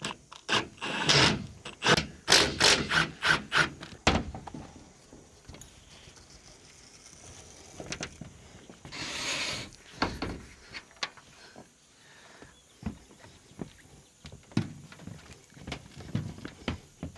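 Knocks, clicks and clatter from unwiring and lifting off a rooftop solar panel and its mounting hardware. A quick run of knocks fills the first few seconds, there is a short rushing noise about nine seconds in, then scattered thuds and clicks.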